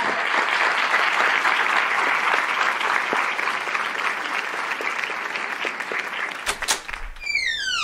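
Applause: steady, dense clapping that dies away after about six and a half seconds. Near the end, a falling sweep of tones comes in.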